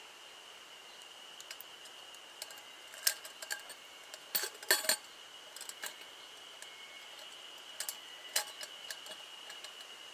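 Light metallic clinks and clicks of a stainless steel pot's wire bail handle knocking against the pot and a hanging hook as the pot is hung up, loudest in a cluster about four to five seconds in, with a few more near the end. A steady high-pitched tone runs underneath.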